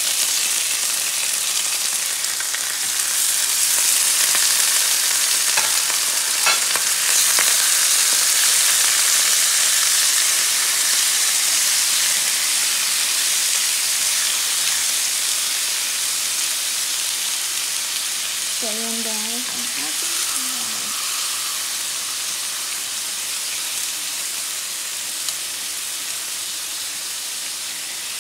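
Chunks of raw pork sizzling in hot oil in a frying pan as they sear to brown. The hiss grows louder a few seconds in as more pieces go into the pan, then slowly eases off.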